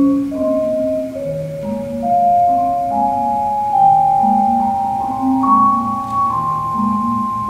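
Mallet-percussion duo on marimbas playing a slow passage: long held notes in the middle register over a lower line that moves to a new note about every half second.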